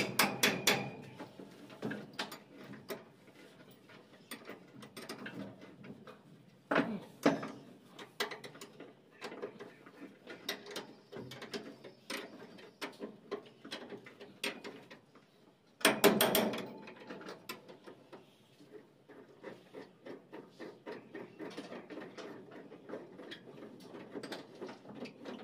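Hand tools clicking and clinking against the steel of a Swaraj 8100 combine harvester as the bolts holding its bed are undone, with louder metal knocks about seven seconds in and again about sixteen seconds in.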